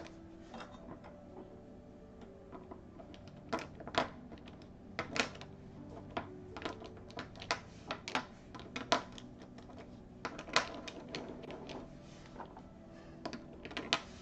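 Plastic Niutop pastel paint pens clicking and clattering against one another and the wooden desk as they are shuffled by hand into colour order, in irregular sharp clicks.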